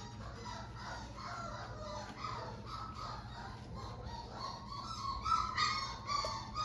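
Four-week-old Labrador puppy crying in short, high-pitched whines and squeals, louder and more frequent over the last second or two.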